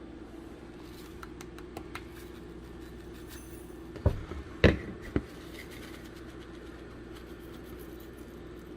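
Spice jars and a small container being handled: a few light clicks and taps, then three sharper knocks about halfway through, over a steady low hum.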